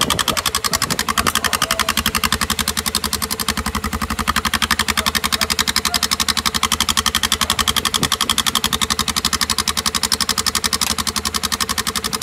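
Honda XRE 300's single-cylinder engine idling steadily, its exhaust note pulsing evenly. A bent washer is wedged into the muffler outlet to make the exhaust louder and harsher.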